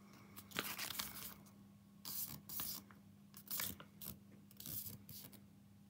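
Plastic toy packaging and small plastic pieces being handled: about four short bursts of rustling and scraping over a few seconds.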